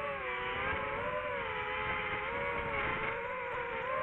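DJI FPV drone's motors and propellers whining in flight, several close pitches wavering up and down together with the throttle.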